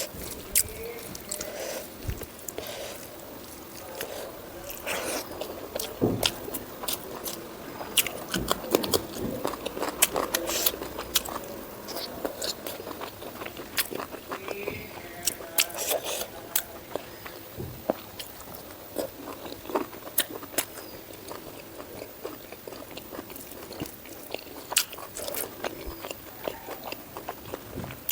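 Close-miked chewing and biting, with many sharp wet mouth clicks and smacks scattered irregularly through it.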